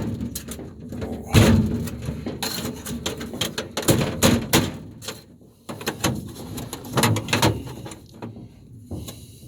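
Irregular metallic bangs, knocks and scrapes as a steel panel, its spot welds drilled out, is struck and pried to break it loose.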